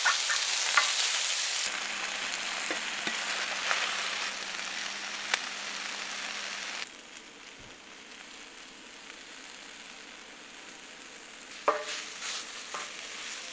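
Chicken pieces and bacon sizzling in a hot, wide frying pan, with a wooden spoon scraping and clicking against the pan as the food is stirred. The sizzle drops quieter about seven seconds in, once diced apple is in the pan.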